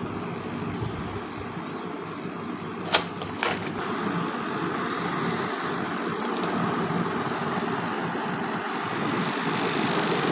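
A machine running steadily, with two sharp clicks about three seconds in.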